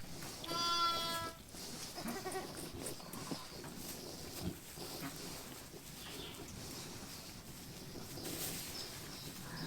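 A sheep bleats once, a long wavering bleat about half a second in. After it there is only faint shuffling, with a short knock about four and a half seconds in.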